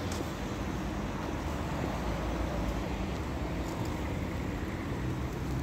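Steady rumble of city street traffic, with no single vehicle standing out.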